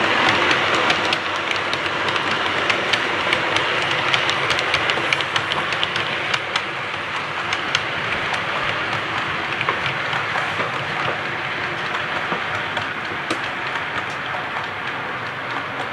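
Model railway train running along the track: a steady rolling rattle with many small irregular clicks from the wheels, slowly getting quieter as the train moves away.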